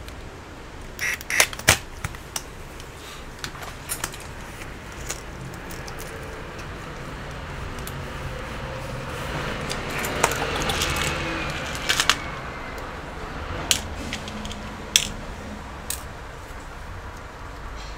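Sharp clicks and taps of tools and gloved hands handling an opened laptop's motherboard, over a steady rushing noise that swells about nine seconds in and eases off after twelve.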